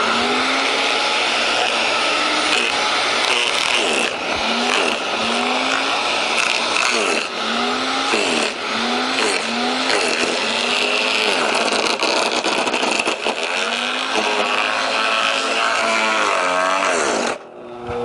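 Electric garden shredder chewing through bamboo trunks with freshly changed blades: loud grinding and cracking, its motor note dipping and recovering again and again as each trunk bites. Near the end the chewing stops abruptly and the motor runs on with a steady hum.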